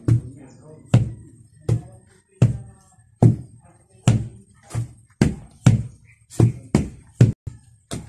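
Wooden hand tampers pounding loose soil to compact it: heavy thuds about twice a second in an uneven, overlapping rhythm from several tampers working at once.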